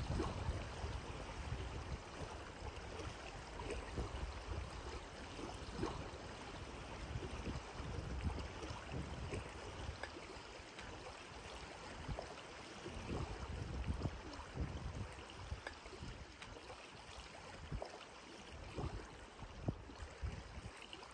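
Small lake waves lapping and gurgling against a pebbly shoreline, close to the water, in irregular soft splashes.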